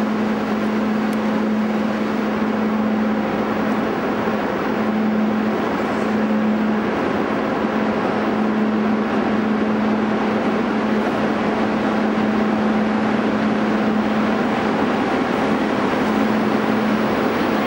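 Steady rushing noise and hum of a railway station hall, with a steady low drone that drops out briefly several times.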